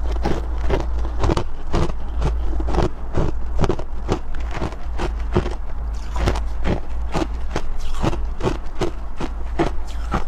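Close-miked chewing of freezer frost ice: a quick, steady run of crunches, several a second, over a low steady hum.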